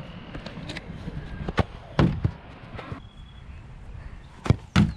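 A small ball kicked at a plastic hole-target board: a few sharp thuds of the kick and the ball striking, the loudest about two seconds in, and two more knocks near the end.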